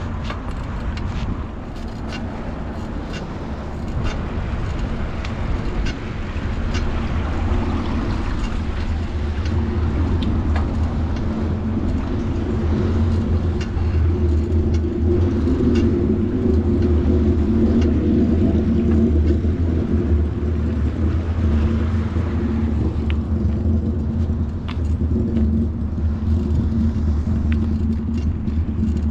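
Bicycle rolling over pavement: a steady low rumble with scattered light rattles and ticks, growing louder about six seconds in.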